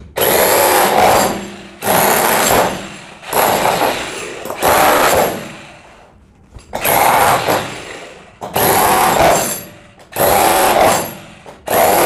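Electric SDS-max demolition hammer (model TDH810T) chiselling and breaking a concrete block. It runs in about eight bursts of roughly a second each, with short pauses between them.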